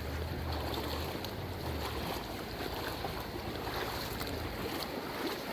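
Shallow river rushing over stones, a steady wash of water, with low wind rumble on the microphone that drops away near the end.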